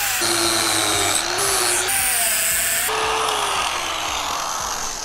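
Angle grinder grinding down a weld on a chrome-plated steel bumper, the motor's whine sagging and recovering under load. About three seconds in the harsh grinding hiss drops away as the disc comes off the metal and the grinder runs free.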